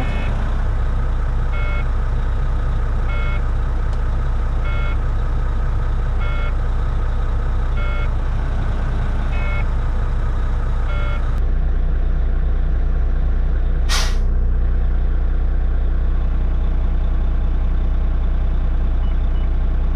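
Volvo D13 diesel idling, heard from inside the cab, with a dashboard warning beeping about every second and a half until about 11 seconds in. About 14 seconds in, a short sharp hiss of compressed air: the newly fitted air dryer purge valve blowing off, showing it works.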